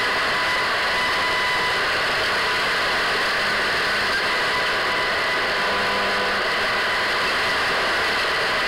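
Radio static: a steady hiss with faint steady whistling tones running through it.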